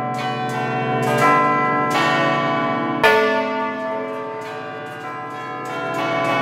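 Large bronze church bells swinging and ringing in a full festive peal, heard close up inside the belfry: repeated overlapping strikes with long ringing tails, the loudest stroke about three seconds in.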